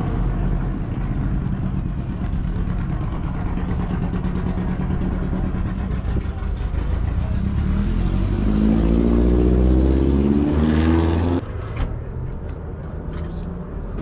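A car engine running steadily, then rising in pitch as it speeds up from about eight seconds in, and cutting off suddenly near the end; a few light clicks follow.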